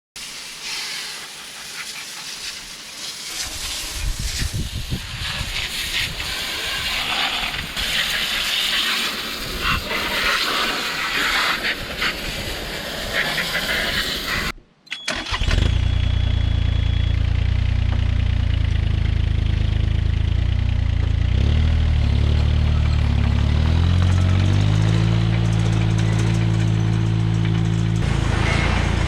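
Water spraying against the machine with a steady hiss for about fifteen seconds. Then, after a brief break, the Kobelco SK17SR mini excavator's diesel engine runs steadily, its pitch shifting in steps for a few seconds near the end.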